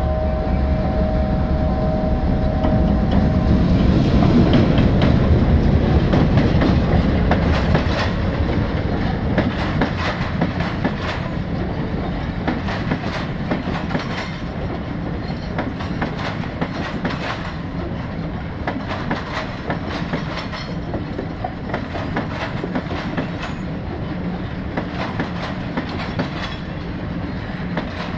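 Train horn blowing a steady chord for about the first three seconds as the M6 diesel locomotive approaches. The locomotive's engine then runs loudly past, loudest about five seconds in. The carriages follow, rolling by with a steady clickety-clack of wheels over rail joints.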